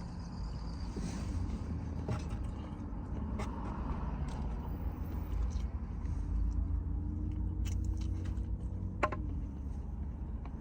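Steady low rumble of a car idling, heard from inside the cabin, with a few short clicks scattered through it.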